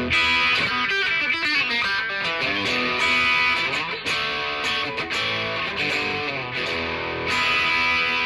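Fender Jazzmaster electric guitar played through a Soldano SP77 preamp, Electro-Harmonix 22 Caliber power amp and Marshall 1912 cabinet. It plays a moving line of notes and chords, with a chord ringing on near the end.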